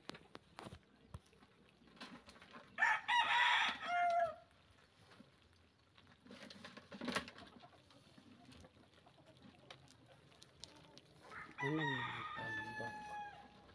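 A rooster crowing twice, about three seconds in and again near the end, each crow ending in a falling pitch, with a single knock between the crows.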